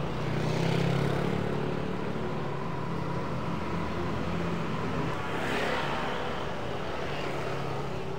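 Street traffic: a motor vehicle's engine running close by, loudest about a second in, and another vehicle passing a little past halfway through.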